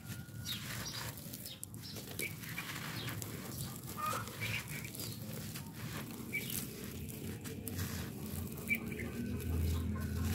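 Hands crumbling dry, compacted red-dirt slabs: gritty crunching and crackling as the soil breaks apart, with loose grit pouring down. A few short bird calls sound in the background.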